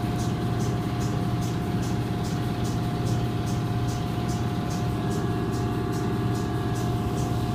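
Automatic tunnel car wash machinery running, heard from inside the car: a steady mechanical hum and whine, with a high hiss that pulses about twice a second.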